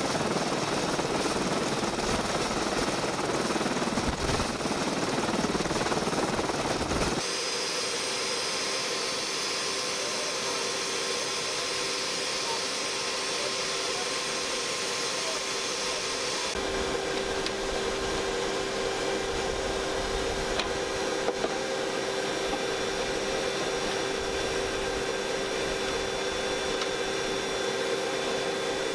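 Steady turbine engine noise on an aircraft flight line: a broad rush for the first seven seconds, then after an abrupt change a steadier hum with a held tone, which changes again about sixteen seconds in.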